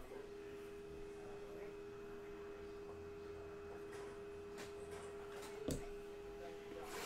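A steady tone of two pitches held together, with a sharp tap about three-quarters of the way through and another near the end.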